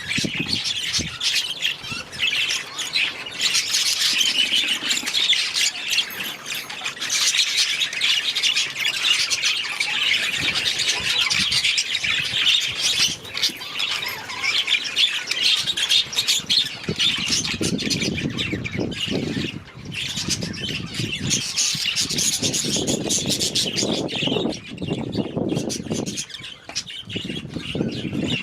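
A flock of budgerigars chattering and squawking, a dense, continuous mass of high calls. About halfway through, a lower noise joins in under the chatter.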